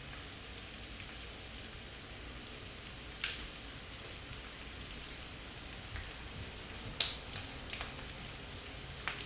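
Cumin seeds and whole spices frying in hot mustard oil in a wok, a steady sizzle. A few sharp clicks break through it, the loudest about seven seconds in.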